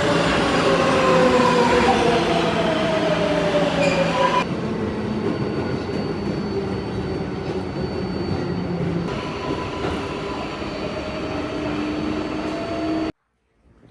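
New York City subway train running on the track, with several whining tones that fall in pitch over the first few seconds. The sound cuts off abruptly near the end.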